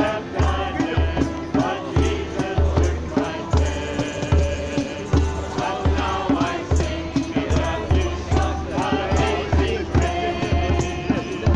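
Hymn music with a steady bass beat and shaker-like percussion, with voices singing along.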